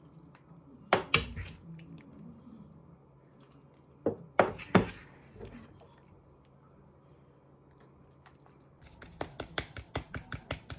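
Serving clatter as tteokbokki is ladled from a frying pan into a ceramic bowl: a few sharp knocks about a second in and again about four to five seconds in. Near the end, quick ticking at about five a second as dried parsley is shaken from a small container over the bowl.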